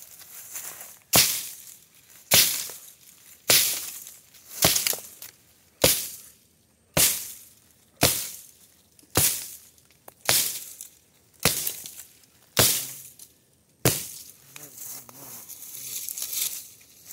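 Axe chopping into a tree trunk: a dozen sharp strikes into wood in a steady rhythm of about one a second, each with a short swish of the swing before it. The chopping stops about three seconds before the end.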